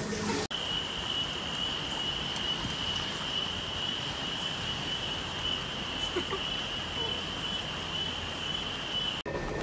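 Insects trilling: one continuous high-pitched note, held steady over faint background noise. It starts and stops abruptly.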